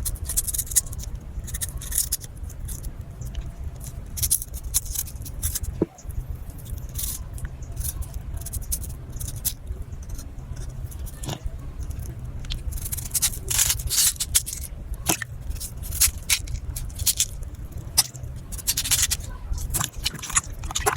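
A kitchen knife peeling raw vegetables with short, irregular scraping strokes, over a steady low hum.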